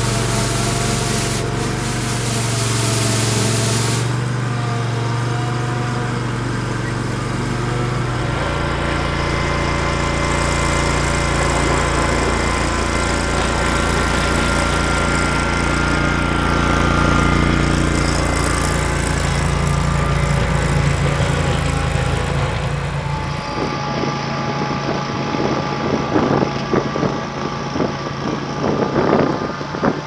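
Engine of a Ventrac SSV stand-on sidewalk snow vehicle running steadily under load while it clears snow. Over the last few seconds, irregular knocks and crackles come through on top of the engine.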